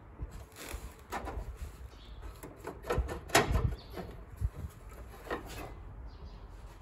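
Irregular knocks and clatter of small sheet-steel patch pieces being handled and fitted, with the loudest cluster about three seconds in.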